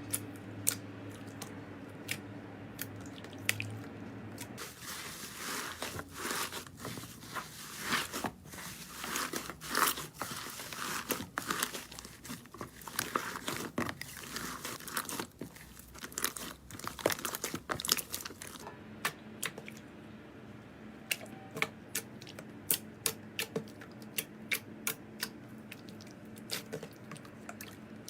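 Slime being squished and kneaded by hand, giving close crackling and popping clicks. The popping is densest through the middle and thins to scattered single pops near the end.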